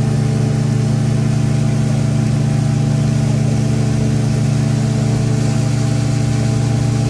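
Passenger speedboat's engines running steadily at cruising speed, heard from inside the enclosed cabin as a constant low drone with a rushing hiss over it.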